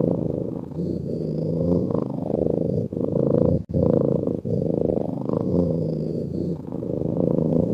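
A cat purring: a steady low rumble that swells and eases with each breath, with short breaks where the breath turns, the deepest a little past halfway.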